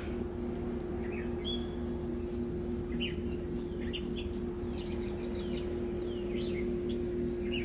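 1986 Kirby Heritage II upright vacuum cleaner running with a steady hum, while songbirds chirp repeatedly in the background.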